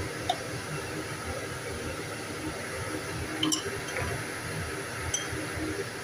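Steady background hiss of kitchen room noise, with a few light clicks.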